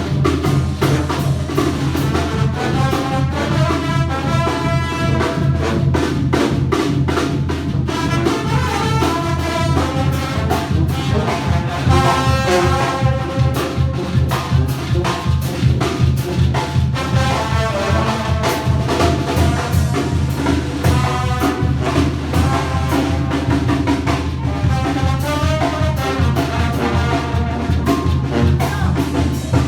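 Mexican banda music: a brass band plays steadily, with trumpets and trombones carrying the melody over a continuous low bass line and driving drums.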